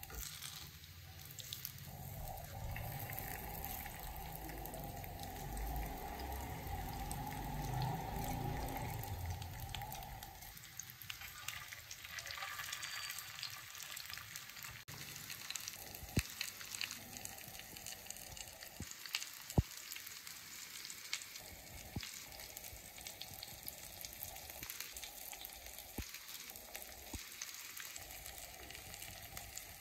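Masala-coated fish pieces shallow-frying in oil on a flat iron tawa: a soft crackling sizzle, with a few sharp clicks of tongs and spatula against the iron. A steady low hum sits under it for about the first ten seconds.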